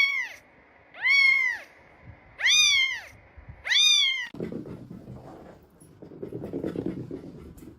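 A cat meowing four times in a row, about a second and a half apart, each meow high and arching up then down in pitch. After that comes a quieter, low, muffled noise.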